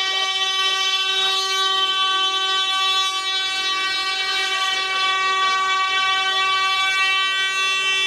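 A horn held down in one long, steady celebratory blast. A second, slightly lower horn joins it for a while in the middle.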